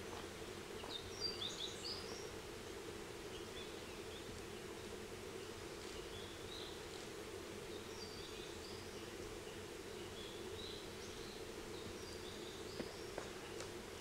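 Forest ambience: short, high bird chirps scattered through, over a steady low hum.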